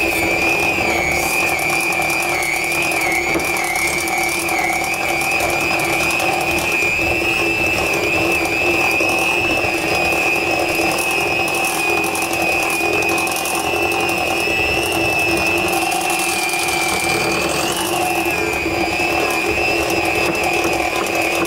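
Electric hand mixer running steadily, its beaters churning through thick cookie dough as the sourdough starter is mixed into the creamed butter and sugar. A steady high motor whine that wavers slightly in pitch as the beaters work the dough.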